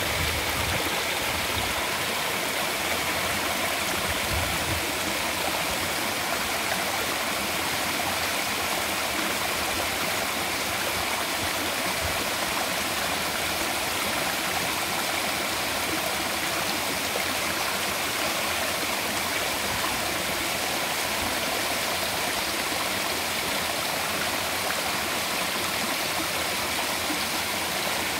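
Waterfall on a mountain river: water pouring and rushing steadily without a break.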